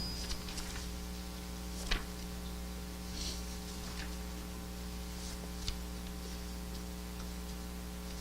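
Steady electrical mains hum, with a couple of faint clicks about two seconds in and again near six seconds.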